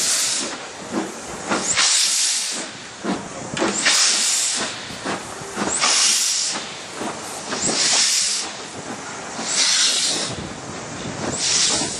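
LMS Stanier Black Five 4-6-0 steam locomotive 45110 pulling a train slowly away, its steam exhaust going in loud hissing chuffs about every two seconds with fainter beats between, heard from a carriage window behind the engine.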